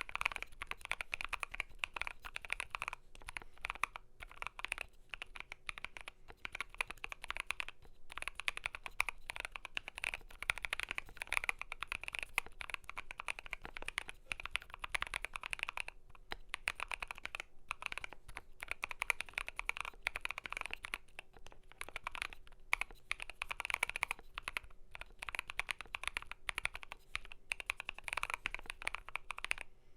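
Steady typing on a KBDfans Blade65 custom mechanical keyboard with lubed Gazzew Boba U4T tactile switches, PBT keycaps and a polycarbonate plate: a continuous stream of keystrokes with a few brief pauses.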